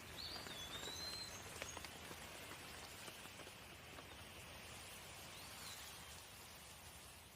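Steady light rain with scattered drops ticking, easing slightly near the end. Brief high gliding whistles come near the start and once more later.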